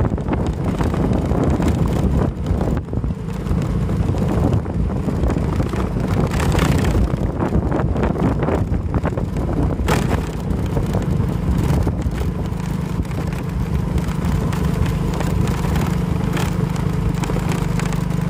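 A small vehicle engine running steadily at low speed while moving along a road, with wind rushing over the microphone.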